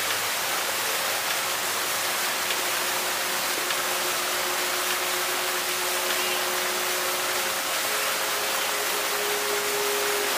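Fountain jets of the Wings over Water sculpture splashing in a steady rush of water, with faint long held musical notes underneath that change pitch about halfway through.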